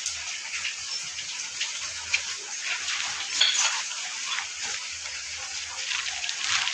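Rainwater running and splashing: a steady hiss with scattered small ticks and splashes.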